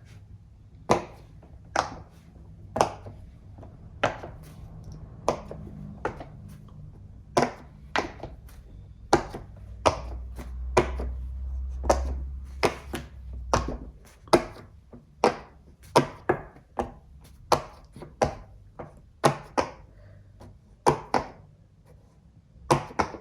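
Silicone Pop It fidget toy bubbles being pressed in, a long irregular series of sharp pops, about one to two a second.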